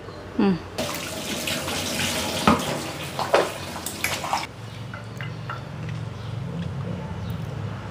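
Foamy starch water on boiling rice being skimmed with a perforated steel ladle: a steady watery hiss with a few scrapes of the ladle on the pot, dropping to a quieter low hum about halfway through.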